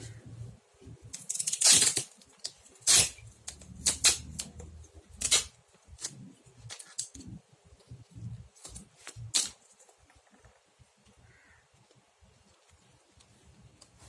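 Hands working sticky tape and other craft materials: a string of sharp rips and crinkles, thickest in the first few seconds and thinning out after about ten seconds.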